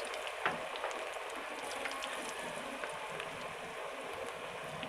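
Besan (gram-flour) onion pakoras deep-frying in hot oil: a steady sizzle with scattered small crackles and a sharper pop about half a second in.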